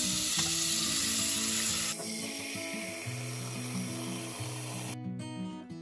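Tap water pouring in a steady stream into a metal cooking pot as it fills. The rush changes to a duller sound about two seconds in and stops abruptly about five seconds in. Soft background music plays underneath.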